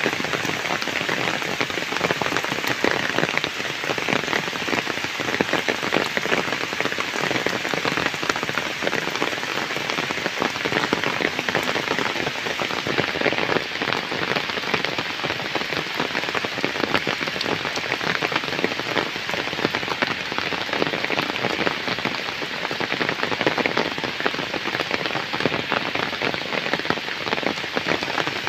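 Heavy rain falling steadily on flooded ground and puddles, a dense, even patter of countless drops.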